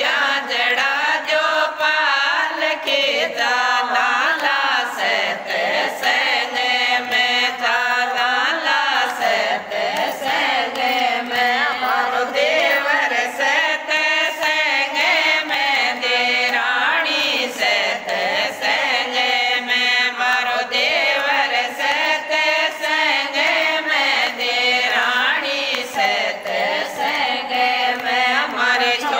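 Group of women singing a Hindi devotional bhajan to Lord Krishna in unison, unaccompanied, with hand claps keeping a steady beat.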